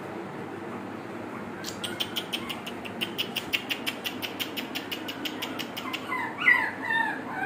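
Shih Tzu puppies yipping: a few short, high rising-and-falling yelps starting about six seconds in, over a steady background hiss. Before them, a fast run of sharp clicks, several a second, for about four seconds.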